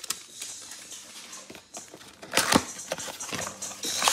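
Trading-card packs and cards being handled: soft rustling with a couple of sharp clicks about two and a half seconds in.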